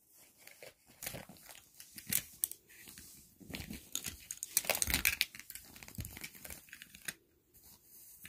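Makeup items and packaging being rummaged through by hand while searching for a mascara: irregular crinkling, rustling and small clicks that die down about seven seconds in.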